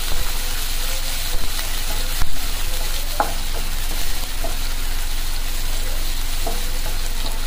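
Sliced onions sizzling steadily in hot oil in a kadai while being stirred, the spatula scraping and knocking against the pan a few times, the loudest knock a little over two seconds in. The onions are being fried until light brown.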